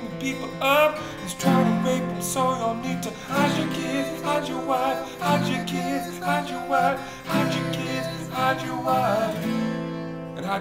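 Two acoustic guitars strummed together, with male voices singing over them.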